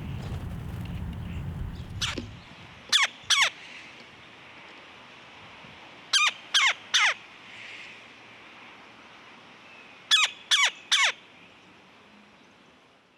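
A bird gives harsh, downslurred calls in quick groups of two, then three, then three. A low rumble fills the first two seconds or so.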